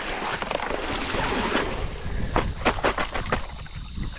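Water sloshing and splashing as a plastic basket of live blue crabs is dunked and rinsed in ditch water. The water washes steadily at first, then a few sharp splashes or knocks come close together from a little past two seconds to about three and a half seconds in.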